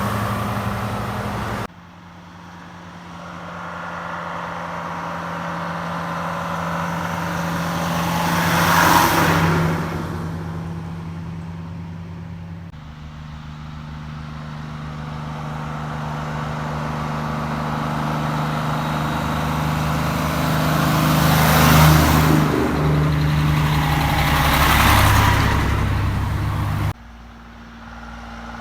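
Diesel engines of vintage Krupp lorries running at a steady note as the lorries drive by, one after another. Each one swells as it comes closer and fades away after passing, with the loudest passes about nine seconds in and twice near the end. The sound cuts off abruptly between passes.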